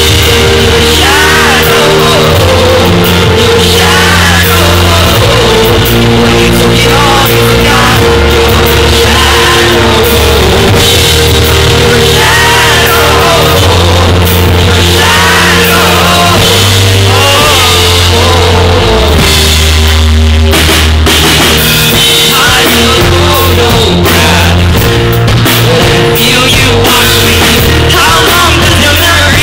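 Live pop-rock band performing: a male lead singer over keyboard, electric guitar, sustained bass notes and a drum kit. It is recorded very loud and distorted from beside a stage amplifier, with audience members singing along.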